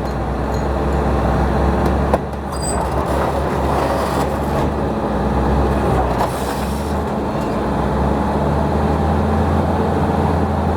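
Heavy earthmoving machinery, a bulldozer and a backhoe, with their diesel engines running steadily under load. A sharp knock comes about two seconds in.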